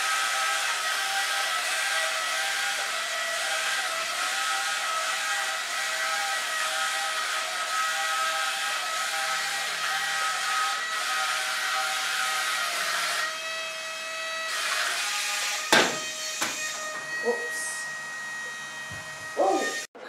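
Suction fan of a remote-control wall-climbing toy tank running with a steady whine and hiss while the tank clings to the ceiling. The tone changes about two-thirds of the way through, and a single sharp knock comes about three-quarters in, followed by a quieter stretch with a few small clicks.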